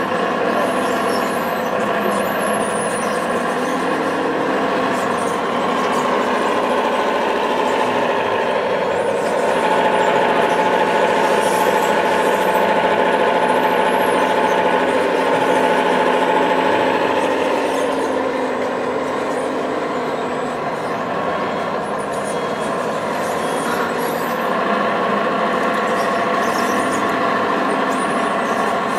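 Radio-controlled scale construction models working, a tracked excavator with hydraulic arms and a model tipper truck: a steady mechanical whine and hum from their motors. It gets louder, with a higher whine added, for several seconds in the middle.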